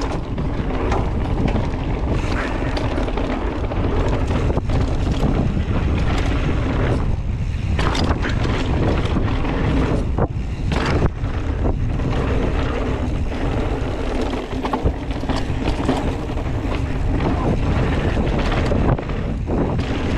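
Heavy wind buffeting the microphone of a camera on a mountain bike being ridden fast, with tyre noise and frequent sharp knocks and rattles as the bike goes over rough ground.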